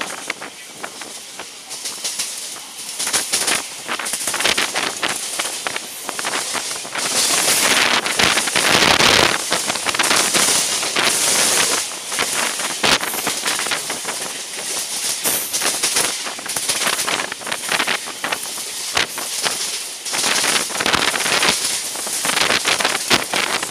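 Mumbai suburban local train running at speed, its wheels clattering over rail joints and points in a steady stream of sharp clicks, with air rushing past the open doorway. It grows louder for several seconds about a third of the way in.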